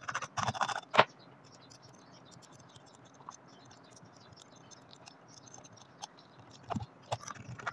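Scratching and sharp clicks of a jumper wire being fitted to the terminals of a switch and a socket on a switch board, in a cluster during the first second and again near the end, with faint ticking between.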